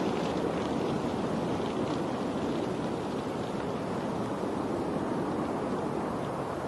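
Steady rushing water, an even wash of noise with a few faint ticks above it, as from a stream or rain.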